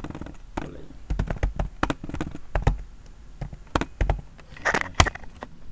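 Typing on a computer keyboard: an irregular run of key clicks at an uneven pace, with a few louder keystrokes.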